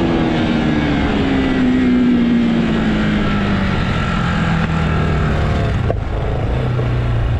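Bajaj Pulsar NS200 single-cylinder engine running while the bike is ridden, its note falling steadily for a few seconds as the revs drop, then holding lower, with steady wind and road noise over it.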